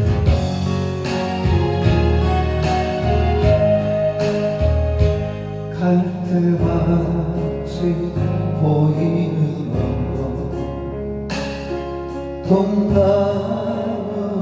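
Instrumental introduction of a slow Korean ballad: a band with bass and sustained melody lines over a steady beat, before the vocals come in.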